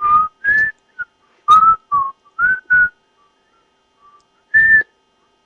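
A person whistling a string of short, breathy notes close to the microphone, seven in quick succession and one more near the end.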